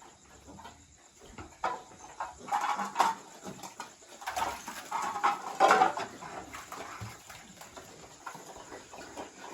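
Intermittent animal calls, a few short ones at a time and loudest about three and six seconds in, with scattered knocks and clicks.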